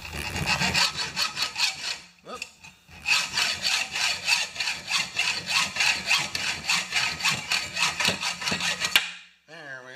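Hand hacksaw cutting through a thin metal rod clamped in a bench vise: quick back-and-forth strokes, a short break about two seconds in, then steady sawing that stops about nine seconds in.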